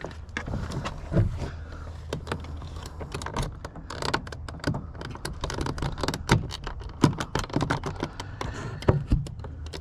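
Irregular hard plastic clicks and taps as a power-window switch and its wiring plug are worked loose from a car door panel.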